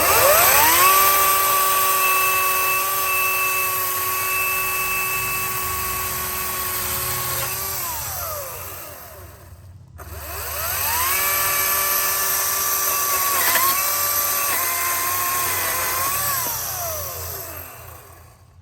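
Ryobi 40V HP battery chainsaw's electric motor spinning up to a steady high whine, running for about seven seconds, then winding down. After a short pause it spins up again, dips in pitch briefly twice under load while cutting a 2x6 board, and winds down.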